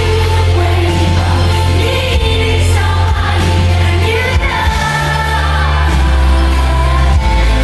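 Live pop concert in a large hall: a female lead singer singing over the band, with loud deep bass.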